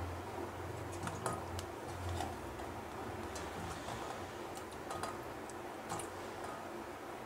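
Peeled potatoes being set one by one into a steel bowl of water: faint, irregular light clicks and taps as they knock the bowl and drop into the water.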